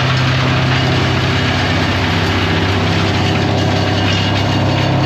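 A large engine idling steadily, with a constant low hum.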